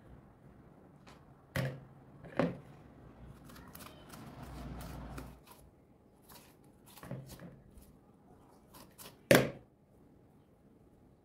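Kitchen handling sounds while eggplants are prepared: scattered sharp knocks and clicks, with a longer scraping rustle about four to five seconds in and the loudest knock near the end.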